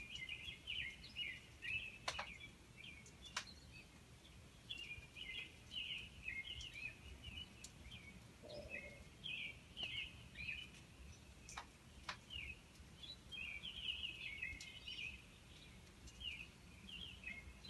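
Many small birds chirping and twittering all through, in quick short calls, over a low steady background rumble. A few sharp ticks stand out here and there.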